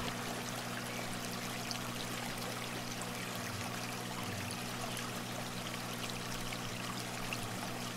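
Aquarium filter water trickling and splashing steadily into the tank, with a steady low hum underneath.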